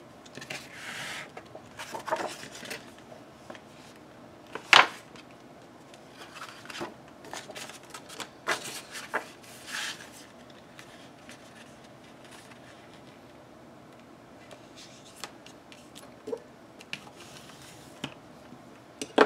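Paper and cardstock being handled: short sliding and rustling scrapes and light taps, with one sharp click about five seconds in.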